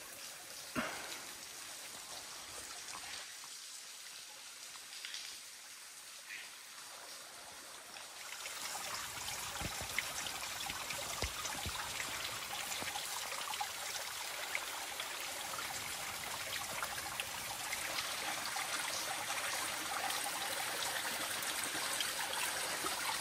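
Water trickling and dripping over rocks from a seeping cliff overhang. It is faint at first with a few separate drips, then becomes a louder, steady trickle about eight seconds in.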